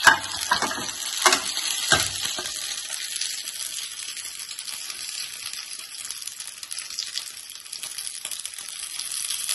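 Oil sizzling steadily in a non-stick frying pan under fried potato-stuffed baati, with about four sharp clicks of metal tongs against the pan in the first two seconds as the pieces are lifted out.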